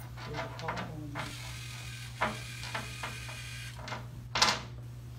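LEGO Mindstorms EV3 robot's motors and gears whirring and clicking as it drives and turns, with a louder, sharper rattle about four seconds in.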